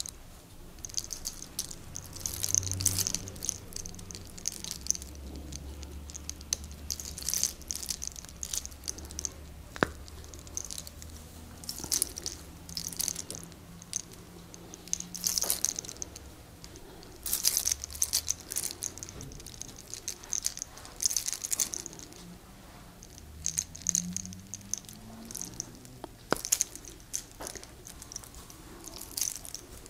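Hair cracking ('sacar los soles'): small locks of hair are twisted and rubbed between the fingers and pulled, giving repeated bursts of fine crackling every second or two, with a couple of sharp snaps.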